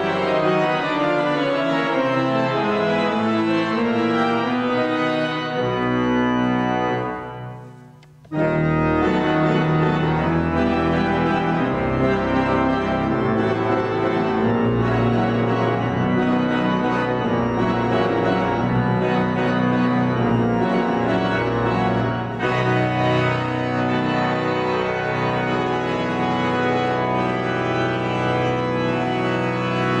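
Organ playing sustained chords. About seven seconds in it fades almost to nothing, then a full chord comes in abruptly and the playing carries on.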